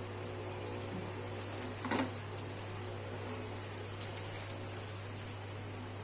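Banana fritters deep-frying in hot oil: a steady sizzle with scattered small pops and crackles, and a brief clatter about two seconds in.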